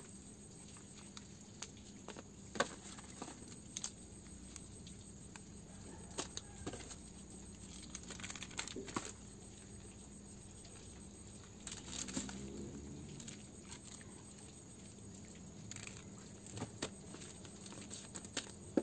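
Plastic packaging and bubble wrap being handled while unboxing: scattered light clicks, taps and crinkles at irregular moments, with a short rustle about twelve seconds in, over a faint steady hum.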